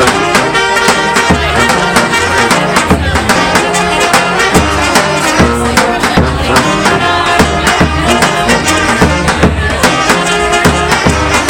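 Live street band playing: a steady drumbeat with a repeating low bass line and pitched melody instruments above.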